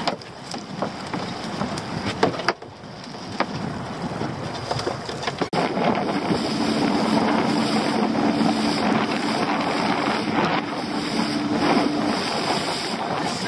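Wind buffeting the microphone and sea slapping around a small open boat, with a few sharp knocks. About five and a half seconds in it cuts abruptly to the boat under way: an outboard motor running with a steady hum under the rush of wake water and wind.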